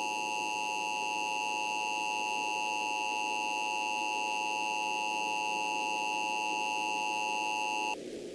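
Emergency Alert System attention signal: a steady, unwavering two-tone electronic alarm, cutting off abruptly near the end, the signal that announces a civil emergency message.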